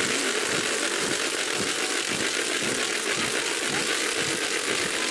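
Steady, dense rattling clatter from a moving crowd of dancers carrying long dry cane stalks.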